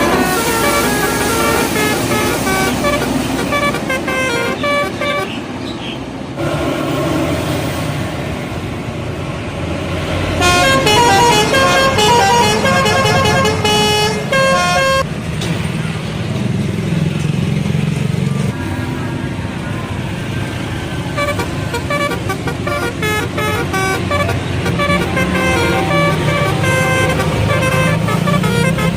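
Indonesian bus telolet horns, multi-tone air horns playing short tunes of stepped notes again and again, with the loudest and quickest run of notes about ten to fifteen seconds in. A steady low rumble from bus engines and traffic runs underneath.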